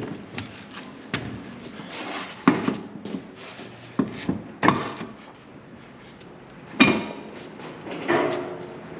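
Irregular knocks and clanks of hand tools and metal parts during work on a car's rear axle, about ten strikes. The ones near seven seconds and eight seconds in ring briefly.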